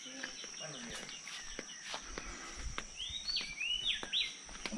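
A bird calling a quick series of swooping whistled notes, bunched together in the last second and a half, over a steady high-pitched insect buzz, with light footsteps.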